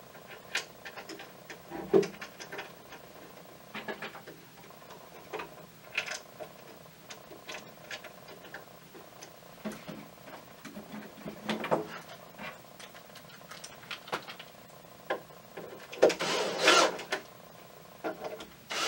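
Scattered light clicks and knocks of plastic fittings and parts being handled on a wooden board, then about sixteen seconds in a cordless drill runs briefly, driving a screw to fix the membrane housing's clamp down, and starts again at the very end.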